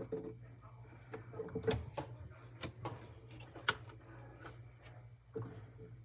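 A few sharp clicks and knocks, about half a dozen spread through, over a steady low hum, with faint low voices.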